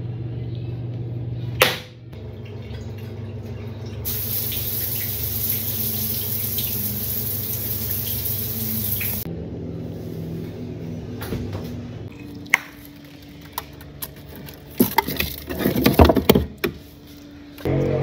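Soft background music, with a steady hiss of running water for about five seconds starting around four seconds in. Near the end come a handful of sharp clicks and knocks.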